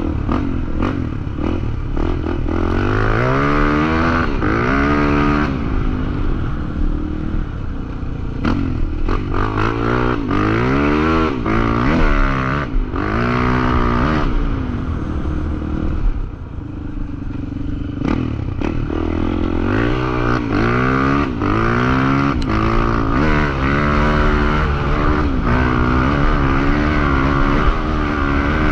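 Off-road trail motorcycle engine revving hard, its pitch climbing and dropping again and again as the throttle is worked, with scattered clattering knocks from the bike over rough ground.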